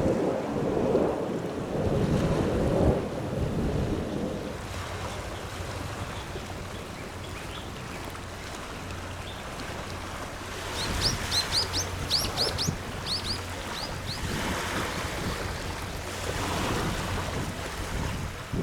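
Small waves washing onto a sandy shore, heaviest in the first few seconds and then softer and steady. About halfway through, a bird gives a quick run of about a dozen high, falling chirps.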